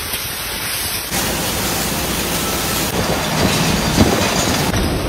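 Glass bottle factory machinery running: a loud, steady mechanical din with hiss, which changes abruptly about a second in and again about three seconds in.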